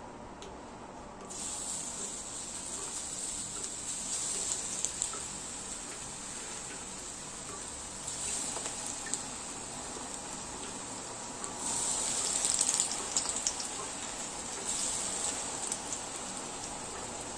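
Hot oil in a frying pan sizzling as potato-and-onion pakora batter is dropped in. The sizzle starts about a second in and swells again each time more batter goes in, loudest about two-thirds of the way through.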